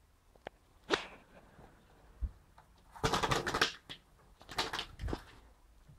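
Barn swallow fluttering against the window, its wings beating on the glass and sill in quick rattling bursts. There is a sharp knock about a second in, and the bursts of rapid wingbeats come a little after halfway and again near the end.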